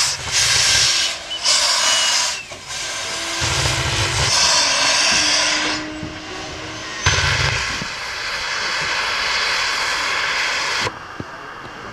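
Steam locomotive hissing loudly as steam jets from the cylinders at the front while it draws the train away, with a low rumble about every three and a half seconds. The hiss cuts off suddenly near the end.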